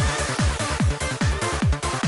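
Electronic dance music with a steady kick drum, a little over two beats a second, under dense synth layers.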